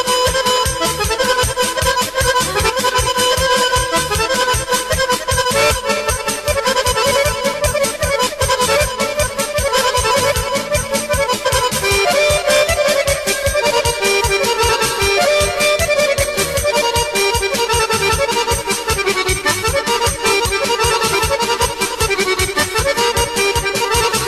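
Balkan folk dance music led by accordion over a fast, steady beat, with the melody shifting about twelve seconds in.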